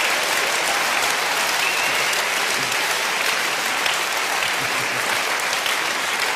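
Large audience applauding, a steady dense clapping.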